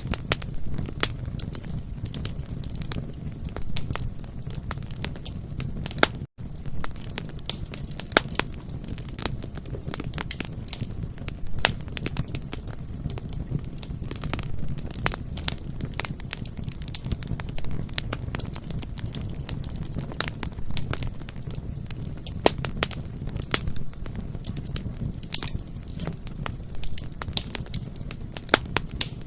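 Bonfire crackling: irregular sharp pops and snaps of burning wood over a steady low rumble of the flames. The sound cuts out for an instant about six seconds in.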